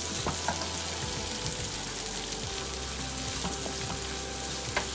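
Garlic and onion sizzling as they sauté in hot oil in a pan, stirred now and then, with a few sharp clicks of the utensil against the pan, the loudest near the end.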